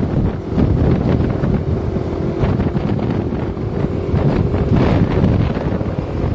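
Strong wind buffeting the microphone while riding in a moving vehicle, a loud, steady rumbling rush of wind.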